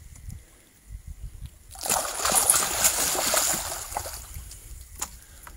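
A hooked flathead catfish thrashing at the water's surface: a burst of splashing about two seconds in that lasts around two seconds and fades away.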